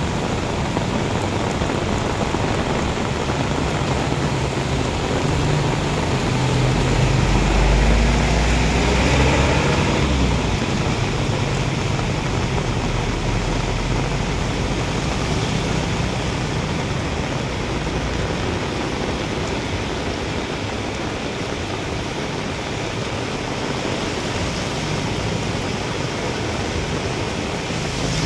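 Heavy rain pouring steadily onto pavement and grass, with runoff water. A motor vehicle passes by between about six and ten seconds in, adding a rising and falling low rumble.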